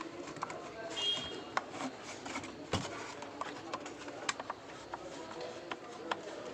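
Irregular light clicks and taps of a screwdriver and screws as a home theater amplifier's circuit board is unscrewed, with one sharper knock just before the middle.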